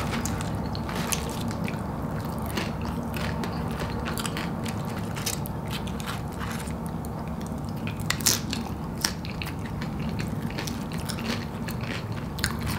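Close-up chewing of tortilla-chip nachos, with scattered sharp crunches as the chips are bitten and chewed, a couple of louder ones about eight to nine seconds in, over a steady low hum.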